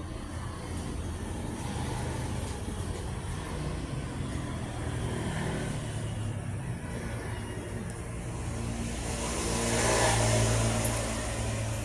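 A motor vehicle's engine running steadily, growing louder to a peak about ten seconds in and then easing off, as a vehicle passes.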